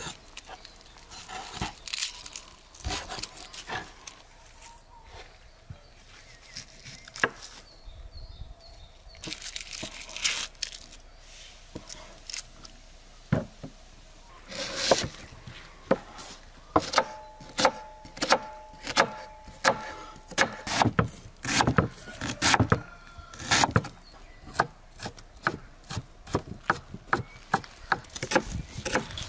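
Heavy meat cleaver chopping through a lamb carcass on a wooden cutting board: a long run of sharp, irregular knocks that come thicker and faster in the second half.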